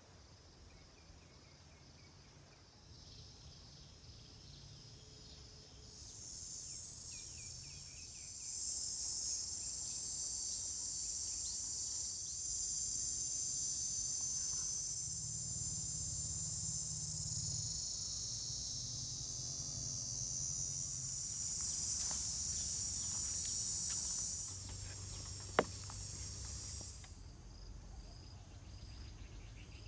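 A chorus of insects buzzing at a high pitch, swelling a few seconds in, loudest through the middle and fading out near the end. There is a single sharp click shortly before it fades.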